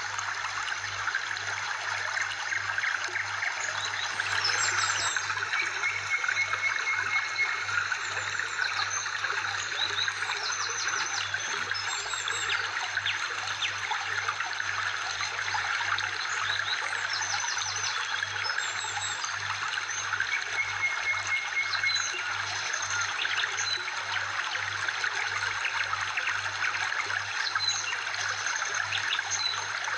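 Steady trickle of running water, with short bird chirps and trills coming and going over it.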